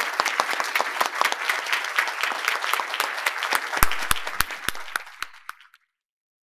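Audience applauding, dying away about five seconds in, with a few low thumps near the end.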